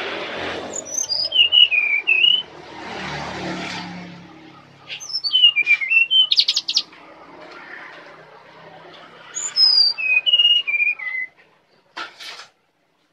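Brown-chested jungle flycatcher singing three phrases of clear whistled notes, each about two seconds long, sliding down from high to middle pitch, with a short buzzy stretch in the middle phrase. A rushing noise with a low hum swells and fades between the first two phrases, and a sharp click comes near the end.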